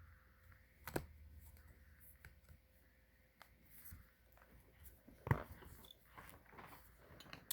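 Hands handling coins in plastic holders and a coin album: a sharp click about a second in, a louder knock a little after five seconds, then a run of small clicks and rustles.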